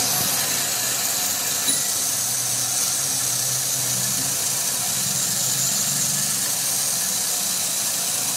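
Metal lathe running steadily: a low motor hum under a steady high hiss.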